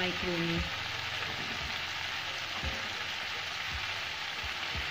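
Chopped cabbage, capsicum and tomato frying in oil on a high flame, a steady sizzling hiss, with a few soft low knocks.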